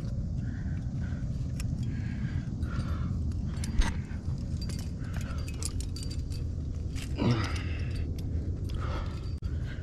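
Metal climbing gear on a harness rack, carabiners and cams, clinking and jangling as the climber moves, with a sharper clack about four seconds in. A steady low rumble lies underneath.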